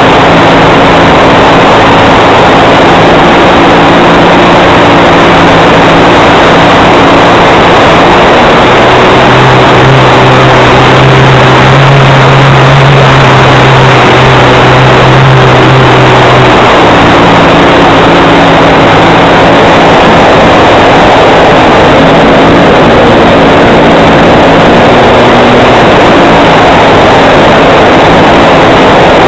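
OS FS 91 four-stroke glow engine on an RC plane running steadily, very loud and close from a camera mounted on the plane. About nine seconds in, its note drops lower for roughly seven seconds, then returns to the earlier pitch.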